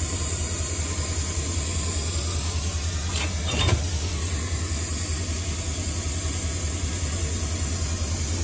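Diesel locomotive engine idling close by: a steady low throb with a constant hiss over it.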